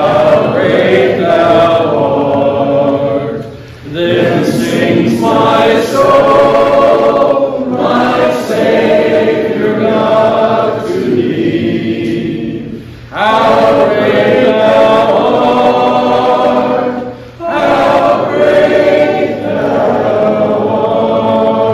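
Congregation singing a hymn together, led by a man's voice on the microphone, in long held lines with a short break for breath every four or five seconds.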